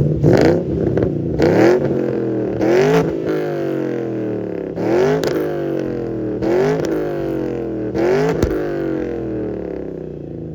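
2008 Ford Mustang GT's V8 blipped repeatedly, about eight short revs that each rise quickly and fall back toward idle, through an aftermarket exhaust with the catalytic converters deleted and mufflers fitted.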